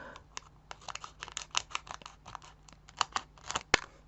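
A foil booster pack being cut open with scissors: a run of short, irregular snips and crinkles of the wrapper.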